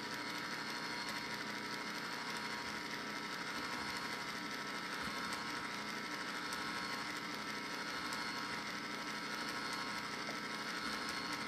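Pampered Chef electric ice cream maker's motor running steadily, turning the beater in the frozen bowl while custard mix is poured in through the lid: an even mechanical hum.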